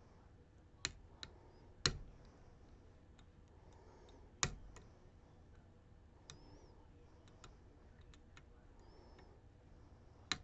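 Faint, scattered sharp clicks of lock picks working the barrels and sliders inside a Ruko DP2 lock, the loudest about one, two and four and a half seconds in.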